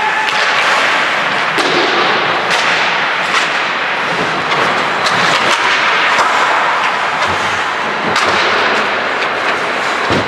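Ice hockey play in a rink: a steady loud wash of skates cutting the ice, broken by several sharp cracks of sticks and puck striking.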